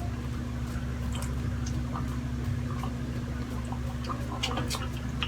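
Close-miked wet chewing and mouth smacking of someone eating sisig, with scattered small clicks, over a steady low hum.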